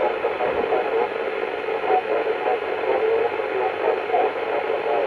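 CB radio receiving on 27 MHz FM through an Alinco DX-SR8 transceiver: a steady hiss of noise, with a weak, distant station barely coming through beneath it.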